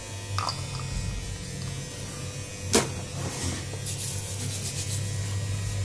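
A steady low electrical hum, with a single sharp click a little under three seconds in and a brief hiss about a second later.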